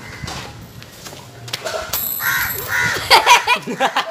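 Crows cawing: two harsh caws about half a second apart a little past halfway. A louder, rapid flurry of sound follows near the end.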